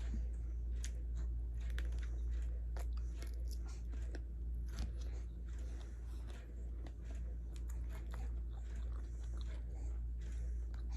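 Close-miked eating sounds: chewing with scattered wet mouth clicks and smacks, over a steady low hum.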